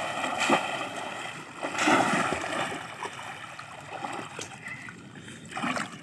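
Shallow water splashing and sloshing as a bamboo polo fish trap is slammed down into it and worked through the water. The biggest splashes come about half a second in, around two seconds, and near the end.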